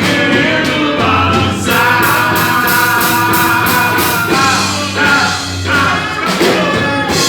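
A live bar band playing with a sung vocal over a steady drum beat.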